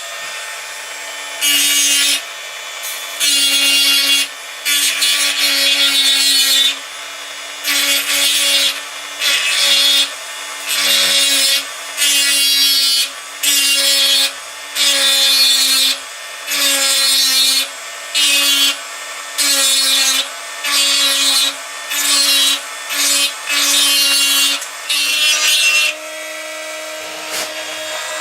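Handheld rotary tool with a diamond burr running at medium speed, a steady motor whine, with repeated grinding passes, roughly one every second or so, as the burr cuts into the plastic of an iPhone dock. Near the end the grinding stops and the motor runs free at a slightly higher pitch.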